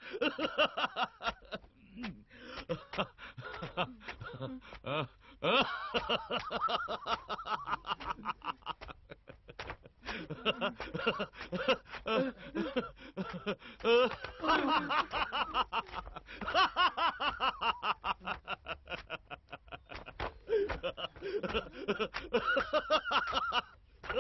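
People laughing: a long run of snickering and chuckling that pulses rapidly, broken by a few brief pauses.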